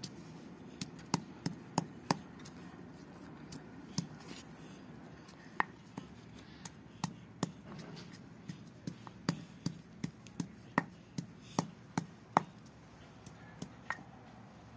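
Wooden pestle pounding chopped green garlic in a stone mortar: sharp, irregular knocks that settle into a steady run of about two a second for a few seconds past the middle, then a few last strokes.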